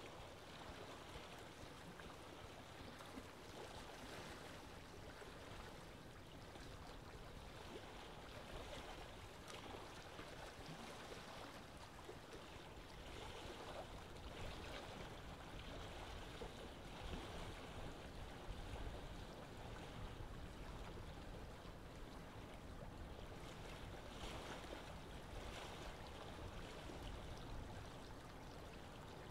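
Faint steady rushing of running water, like a small mountain stream.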